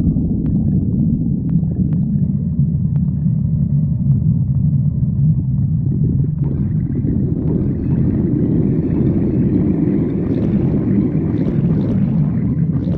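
A person's stomach growling: a steady low rumble, joined about halfway through by a higher, rougher growl that stops near the end.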